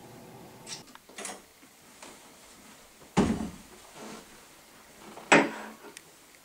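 Bowed-string music ends within the first second. Then come wooden door knocks and thuds as people come through a doorway: a few light knocks, and two loud thuds about three and five seconds in.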